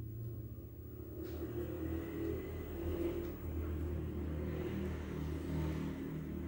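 A motor vehicle's engine running with a low, steady rumble, a little louder from about a second in.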